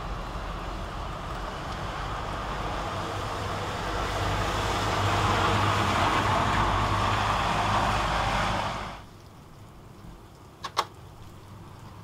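Road traffic: a motor vehicle's engine and road noise growing louder for about nine seconds, then cutting off abruptly. Two sharp clicks follow close together near the end.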